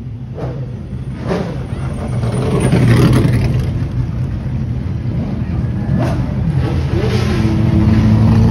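Several race car engines running and revving as the cars pass one after another at low speed. The sound swells to its loudest about three seconds in and again near the end.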